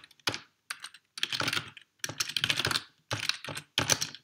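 Typing on a computer keyboard as a terminal command is entered: quick runs of keystrokes with short pauses between them.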